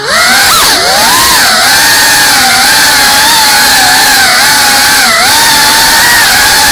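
GEPRC CineLog35 cinewhoop's motors and ducted propellers whining loudly, heard from the on-board camera, the pitch rising and falling with the throttle as the drone flies; the pitch drops briefly near the start and then holds fairly even.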